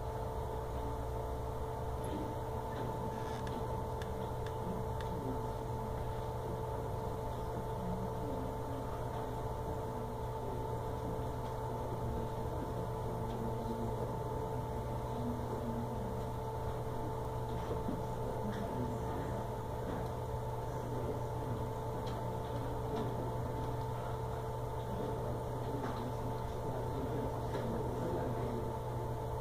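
Steady mechanical hum with several constant tones, the background drone of a room with equipment running.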